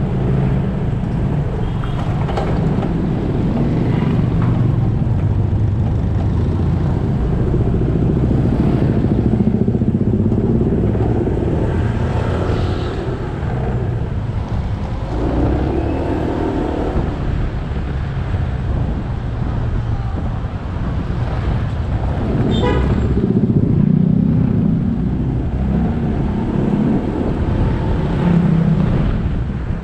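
Motorcycle engine running under way, its pitch rising and falling with speed, over steady road and wind noise, with other traffic passing.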